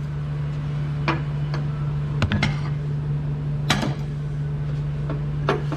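Several sharp metallic clinks and knocks of hand tools and parts being handled on steel, over a steady low hum.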